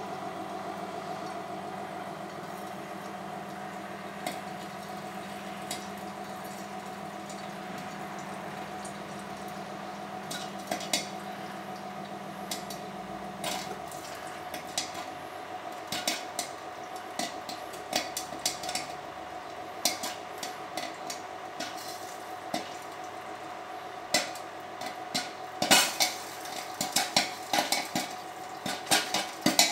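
Kettle popcorn machine running with a steady motor hum as the kettle heats. A few single kernels pop about ten seconds in, and near the end the popping picks up into quick, sharp pops against the metal kettle.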